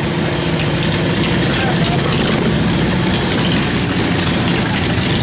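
Vintage motorcycle engines idling steadily, with voices in the background.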